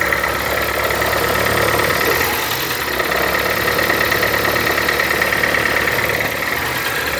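Honda car engine idling steadily, with a steady high-pitched whine running over it.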